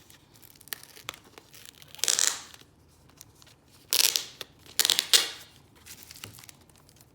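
Packaging being torn open and crinkled to get at a glass dip pen: three loud tearing, rustling bursts about two, four and five seconds in, with small handling clicks between them.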